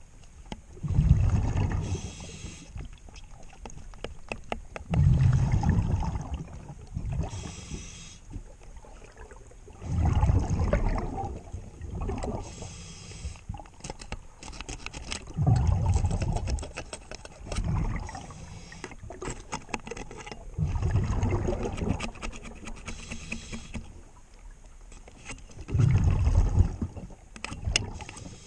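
Scuba diver breathing through a regulator underwater. A rumbling rush of exhaled bubbles comes about every five seconds, with a shorter hissing inhale between each, plus faint clicks.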